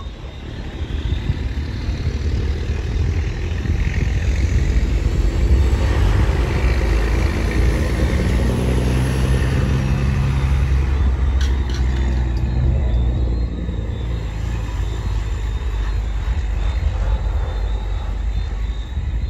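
Cummins N14 straight-six diesel of a loaded International truck running under load. It grows louder over the first few seconds, dips briefly about two-thirds through, then pulls on steadily.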